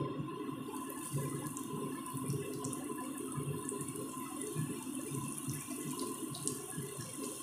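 Coated pomfret sizzling in hot oil in a flat frying pan as the fish are laid in: a steady frying hiss with a few small crackles.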